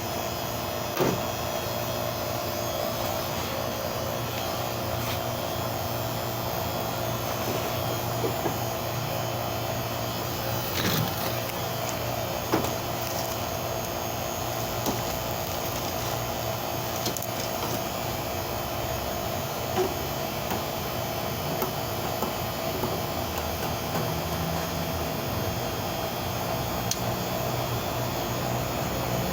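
Refrigeration vacuum pump running steadily, evacuating the system after a compressor replacement, with a few sharp clicks and taps from handling small parts.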